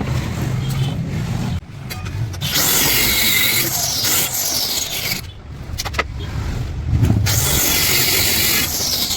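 An electric power tool runs in two bursts, the first about three seconds long and the second about two. Inside each burst a whine slides in pitch as the tool loads up. A few sharp clicks fall between the bursts.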